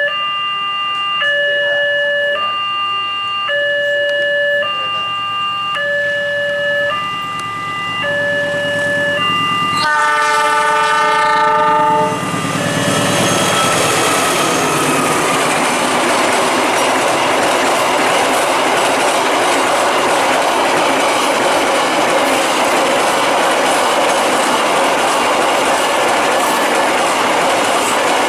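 A level-crossing warning siren, a recording played through a megaphone that stands in for the crossing's silent loudspeaker siren, repeats a two-tone chime that alternates about once a second. About ten seconds in, a train horn sounds for about two seconds, and then the train passes with steady rumbling and wheel clatter.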